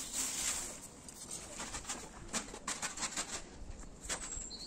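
Birds calling, with a brief hiss at the start and a quick run of short clicks and rustles about two seconds in.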